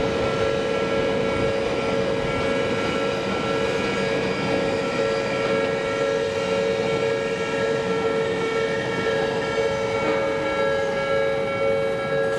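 Japanese level-crossing warning bell ringing steadily, its tones held over the rumble of an Odakyu electric commuter train passing through the crossing.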